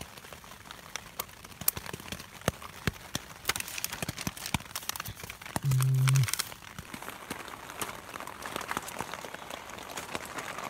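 Small camping gear being handled: a scatter of light clicks and taps from a small metal travel chess tin and other items, with plastic wrappers crinkling. About halfway through a short low hum lasts about half a second and is the loudest sound.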